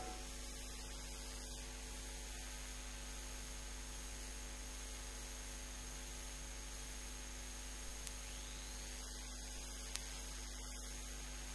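Steady electrical mains hum with hiss, with two faint ticks in the second half.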